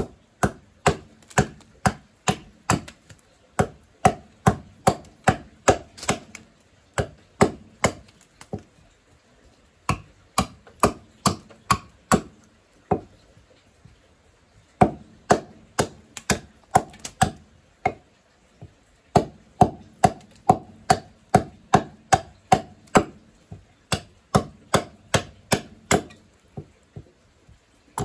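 Small hatchet chopping into a wooden cup blank resting on a stump, sharp blows at about two a second in runs, pausing briefly a few times.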